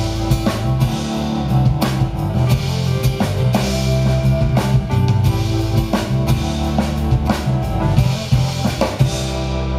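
Live pop band playing an instrumental passage: drum kit keeping a steady beat under electric bass, acoustic guitar and keyboard. The drumming and cymbals stop near the end, leaving a held low chord as the song ends.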